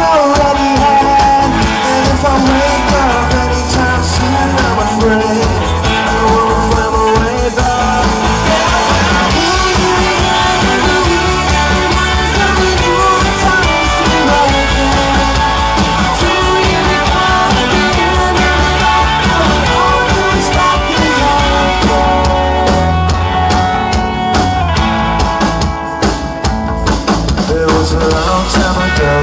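Live rock band playing loud: two electric guitars, an electric bass and a drum kit.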